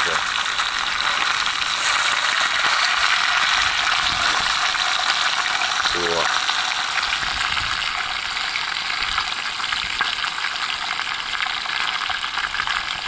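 Small zander frying over an open fire, a steady sizzle throughout.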